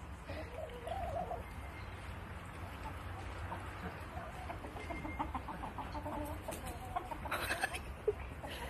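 Chickens clucking softly at intervals: a few wavering calls about a second in, then a run of short clucks later on, with one brief noise near the end.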